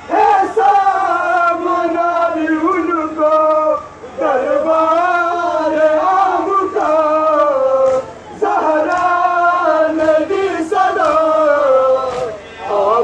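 Large crowd of men chanting a mourning noha together, in long, drawn-out sung phrases with short breaks about every four seconds.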